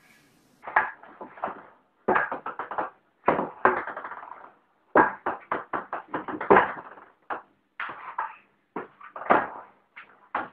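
Table-tennis ball bouncing, clicking sharply on the table and paddle in quick runs of hits with short gaps between them.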